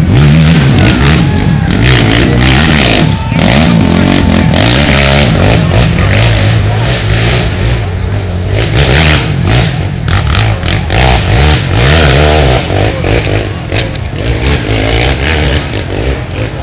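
Racing ATV engines revving hard and loud, pitch rising and falling with shifts and throttle, with clattering over the course; the sound eases off near the end.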